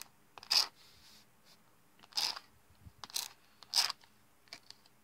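A plastic gift card used as a nail-stamping scraper, dragged across a metal stamping plate in four quick scrapes to clear the excess glitter polish off the engraved image.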